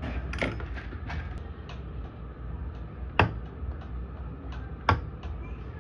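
Small clicks and taps of metal tools against a circuit board during soldering work on an IC, with two sharper clicks about three and five seconds in, over a low steady rumble.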